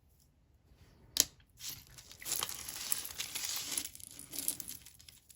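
Plastic bag crinkling as jewelry is handled and pulled out, with a single sharp click about a second in.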